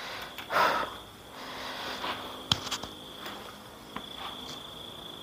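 Steady high-pitched chirring of night crickets, with a short breathy sniff about half a second in and a few light clicks and knocks from handling the camera tripod, power bank and cables.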